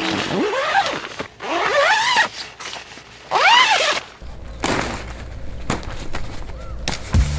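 Three short cries with a clear pitch, each rising then falling, in the first four seconds. Then rustling, clicks and knocks as the fabric and poles of a camouflage dome tent are handled during pitching.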